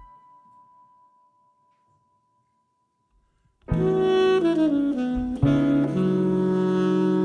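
Large jazz ensemble: a brass chord dies away into near silence with one faint high note lingering, then about halfway through the saxophones come in loudly with falling lines, a sharp accent, and a held chord.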